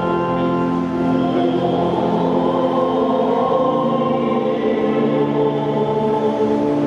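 Choir singing long held chords, the notes shifting slowly from one chord to the next.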